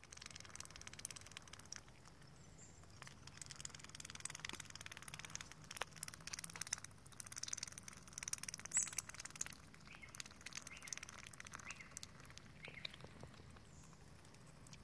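Australian wood duck foraging with its bill in wet grass and mud: a dense, irregular run of soft clicks and wet crackles, with a louder click about nine seconds in and a few faint short high chirps later on.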